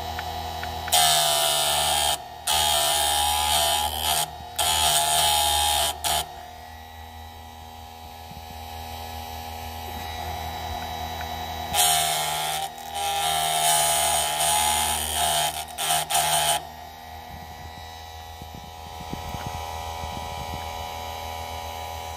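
Bench-mounted electric chainsaw chain sharpener running with a steady motor hum. Its grinding wheel is brought down onto the chain's cutter teeth in two runs of short, loud grinding passes, several in each run, with the motor humming alone between them.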